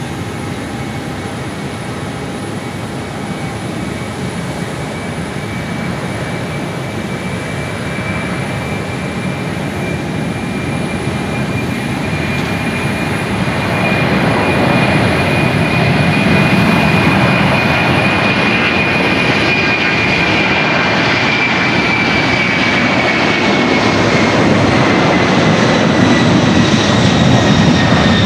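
Boeing 747-400 LCF Dreamlifter's four turbofan engines at takeoff power during the takeoff roll. The roar grows steadily louder as the aircraft approaches. A high engine whine holds steady, then drops in pitch over the last several seconds as the aircraft passes.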